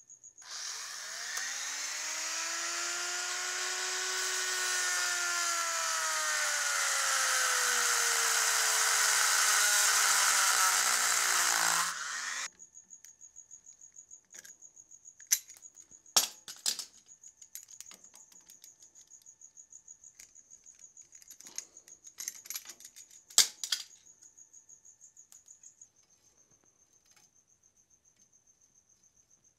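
Handheld rotary tool with a cutting wheel slicing through a ground-down lock nut on an emergency brake cable. It runs for about twelve seconds, its whine rising and then sagging as it bites, and cuts off suddenly. After that come a few sharp metallic clicks of hand tools.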